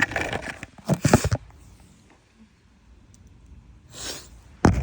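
A woman with a snotty cold sneezing and sniffling: breathy bursts with a brief voiced catch in the first second and a half, then a quiet stretch. A sharp intake of breath comes around four seconds, and a loud burst begins just before the end.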